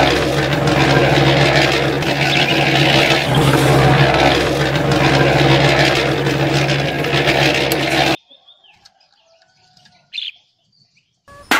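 Small electric motor of a miniature model concrete mixer running steadily with a hum and whir as it drives the drum with its grey mix. It cuts off suddenly about eight seconds in, and faint bird chirps follow.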